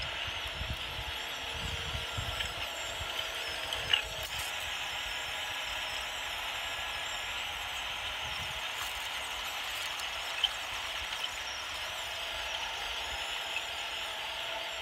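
Small electric drive motor and gearbox of a radio-controlled Bruder toy tractor whining steadily as it drives and pulls a roller over gravel, with a couple of sharp clicks.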